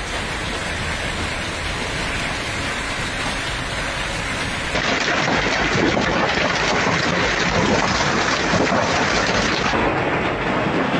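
Heavy hail and rain pelting down, a loud dense hiss of countless small impacts; it grows louder about five seconds in.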